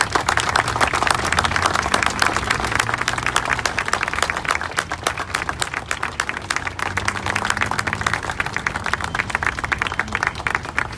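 Audience applauding: many hands clapping steadily, strongest in the first few seconds and easing slightly toward the end.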